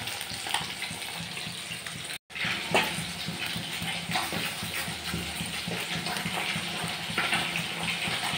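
Catla fish steaks frying in hot mustard oil: a steady sizzle and crackle. The sound cuts out briefly about two seconds in, then the sizzle carries on with a few short snaps and clicks.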